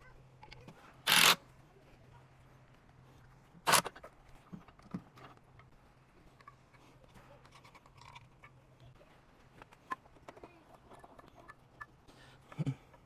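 Work noises from mounting and wiring a generator inlet box: three short, loud bursts, about a second in, near four seconds and near the end, with scattered small clicks and taps of tools and wires between them over a faint low steady hum.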